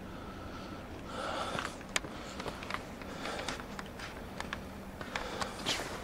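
Breathing through the nose, a soft noisy breath about every two seconds, over light clicks and crunches of footsteps on a snowy sidewalk.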